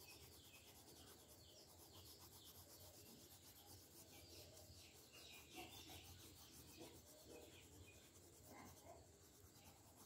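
Faint scratching of a light-blue colored pencil shading on paper in quick, repeated short strokes.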